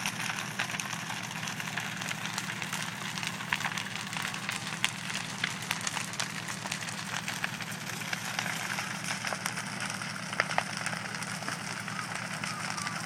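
A fully involved wooden house fire crackling, with many sharp pops and snaps scattered through a steady rushing noise. A steady low hum runs underneath.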